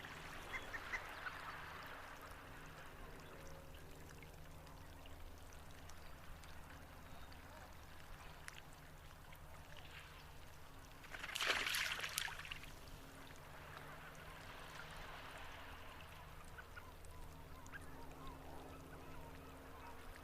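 A duck calling: a few faint calls near the start and one louder call about halfway through.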